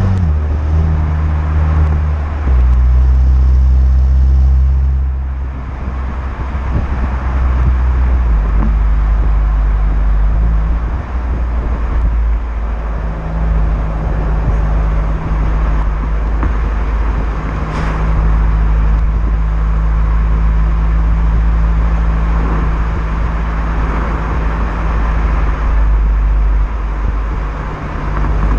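Renault Megane GT's 1.6 TCe turbo four-cylinder running through its stock exhaust, the engine note jumping up and down in pitch in sudden steps several times. It is loudest about two to five seconds in.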